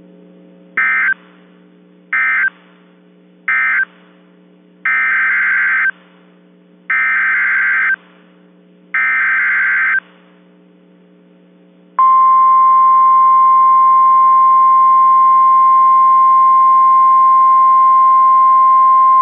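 Emergency Alert System SAME data bursts on NOAA Weather Radio: three short end-of-message bursts of warbling data tones, then three longer header bursts. About twelve seconds in, the steady 1050 Hz warning alert tone begins, loud and unbroken, over a faint steady hum.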